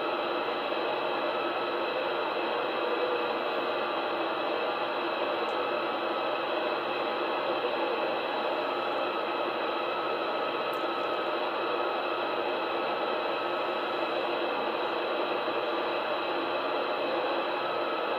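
CB radio receiver hissing steadily through its speaker: band noise running at about S7 on a poor skip day, burying a weak distant station.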